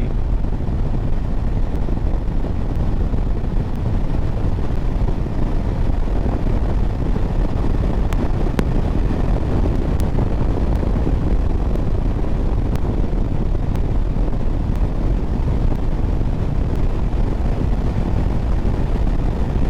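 Riding noise from a 2024 Harley-Davidson Road Glide at speed: a steady, loud rush of wind over the microphone, mixed with engine and road noise.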